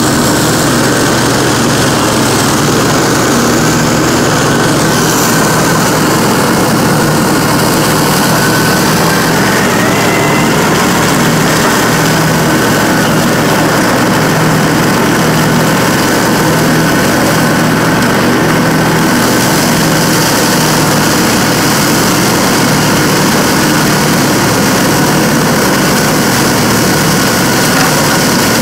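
Dixie Chopper zero-turn mower running steadily with its blades spinning as it drives through and chops up a thick layer of dry fallen leaves. The sound is a loud, unbroken engine and blade noise with a faint high whine over it.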